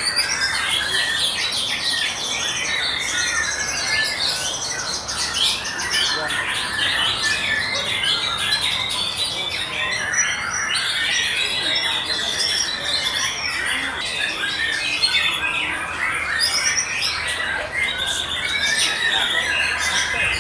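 Several caged white-rumped shamas (murai batu) singing at once in a contest round. Rapid, varied whistled and chattering phrases overlap without a break.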